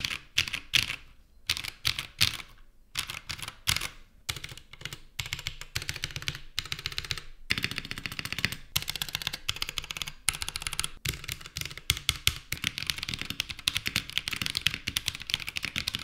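Typing on a Drop ALT High Profile mechanical keyboard fitted with Holy Panda tactile switches: runs of key clacks with brief pauses at first, then faster, denser typing from about halfway through.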